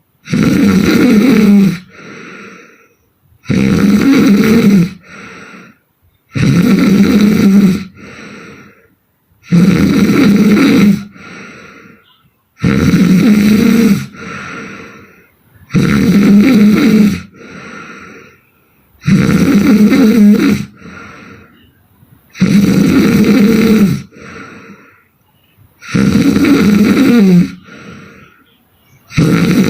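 A woman snoring hard in her sleep: a loud snore about every three seconds, each lasting over a second and followed by a shorter, softer breath, in a steady rhythm.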